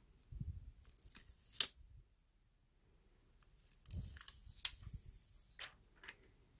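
Thin protective plastic film being peeled off a smartphone's screen, crinkling in two bouts with a few sharp snaps.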